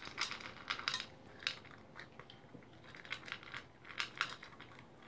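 Toy poodle eating its dinner from a bowl: a run of small irregular crunches and clicks of chewing and of food knocking against the bowl.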